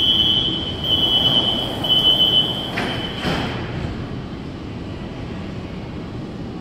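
Door-closing warning beeps at a metro platform: a high steady tone sounding about once a second, about three times, as the train and platform screen doors slide shut. Two knocks come near the middle as the doors close, then the standing metro train's steady hum.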